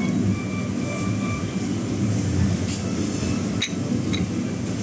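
Steady low background rumble, with two light porcelain clinks near the end as a teacup is lifted off its saucer.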